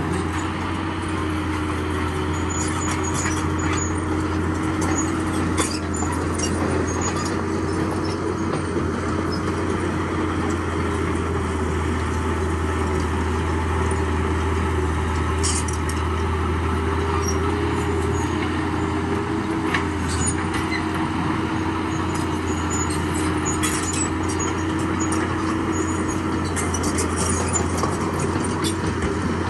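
Diesel engine of heavy earthmoving machinery running steadily, with scattered light metallic clicks and clanks.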